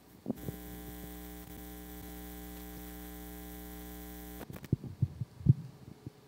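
Steady electrical mains hum on the sound system's audio line. It cuts off suddenly about four seconds in, followed by a few sharp knocks and bumps.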